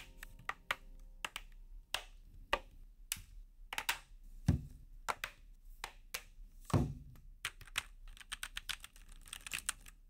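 Scattered clicks and clacks of keys being pressed on a Keychron C1 mechanical keyboard with Gateron Red linear switches, foam-dampened and with a tape mod on the bottom. Two duller, louder knocks about four and a half and seven seconds in, as the board is turned over and set back on the desk.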